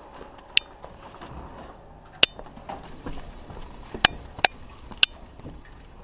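Five sharp metallic clicks with a short ringing tail, at uneven intervals, from handling the Honda Valkyrie's handlebar controls, over a low steady background noise.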